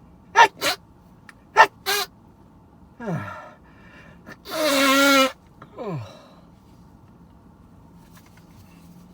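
A person sneezing in an allergic fit: two pairs of sharp, short bursts in the first two seconds, then one long, loud voiced sneeze about halfway through. The sneezing is an allergy, which he puts down to hyacinth.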